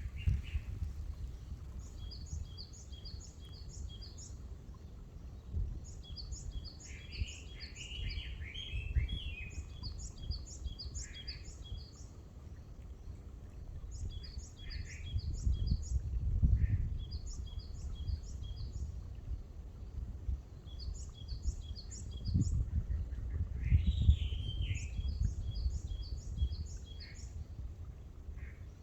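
Wild birds singing: one bird repeats a quick phrase of short, high notes every few seconds, while another gives lower chirping calls now and then. A steady low rumble runs underneath.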